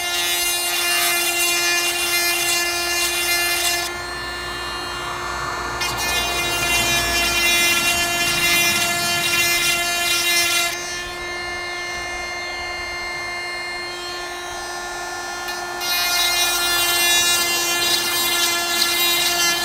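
Oregon 12V chainsaw sharpener's small grinder motor running with a steady whine. Three times, for a few seconds each, it grinds against the chain's cutter teeth, adding a louder rasping hiss.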